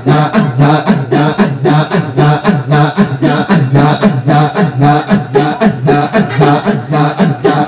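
Devotional zikr-style chanting: male voices sung a cappella to a quick, steady, repeating beat made by voices alone, with no instruments.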